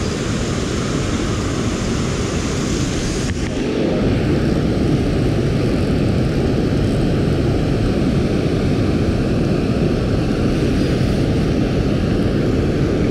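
Steady rush of water pouring over a dam spillway close by, getting a little louder about four seconds in.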